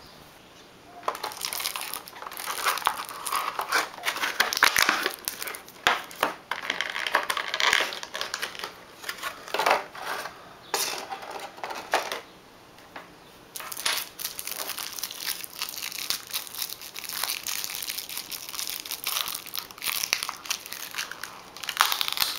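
Clear plastic packaging crinkling and crackling as it is handled and unwrapped from a model's display stand, in irregular stretches with a short lull partway through.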